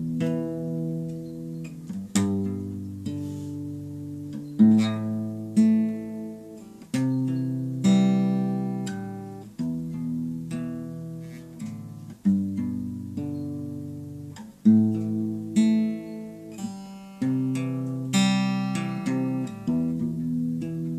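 Acoustic guitar playing a slow chord progression, a new chord struck about every one to two seconds and left to ring and fade.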